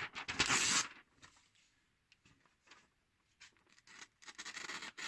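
Tip of a freshly sharpened kiridashi knife scratching into a sheet of paper, once at the start and again, building up, near the end: a test of whether the tip grabs the paper.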